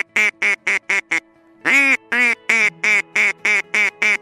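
Duck quacking: a fast run of loud, nasal quacks, about four a second, broken by one longer drawn-out quack about two seconds in.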